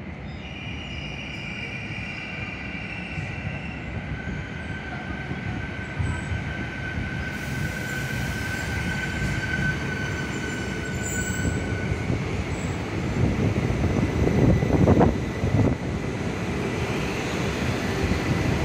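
CRH2 high-speed electric multiple unit pulling into a station platform: a steady rumble that grows louder as it nears and runs alongside, with a high steady whine over the first twelve seconds or so.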